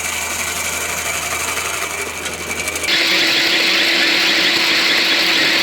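Skid-steer-mounted hydraulic stump grinder and loader engine running steadily. About three seconds in the sound switches abruptly to a louder run with more hiss.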